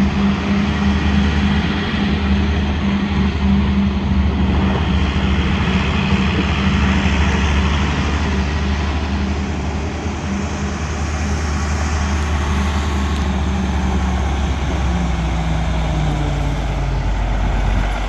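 John Deere 4440 tractor's turbocharged six-cylinder diesel running as the tractor drives off and comes back. It fades a little about halfway through and grows louder again near the end, its pitch dropping in the last few seconds.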